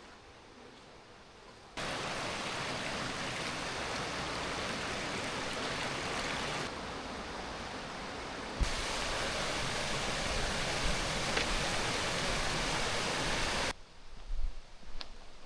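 Waterfall: a steady, even rush of falling water that starts abruptly about two seconds in, shifts slightly in level twice, and cuts off abruptly near the end. It is framed by faint, quiet ambience, with a few low bumps at the very end.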